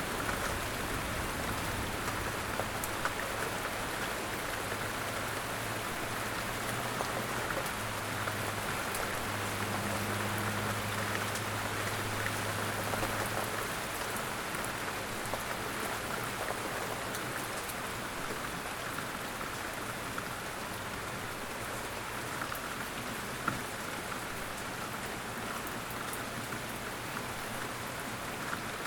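Steady rain falling, a constant hiss with scattered drop ticks. A low hum runs under it for about the first half.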